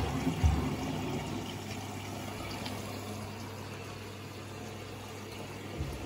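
Miele Novotronic W925 front-loading washing machine with its empty drum turning through a deep bath of water: water sloshing and splashing over a steady low motor hum.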